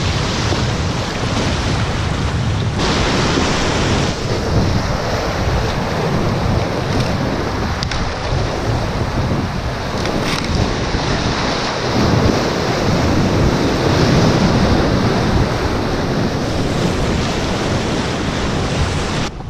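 Rushing whitewater of a river rapid heard from an inflatable paddleboard running it, with water splashing close by and wind buffeting the microphone.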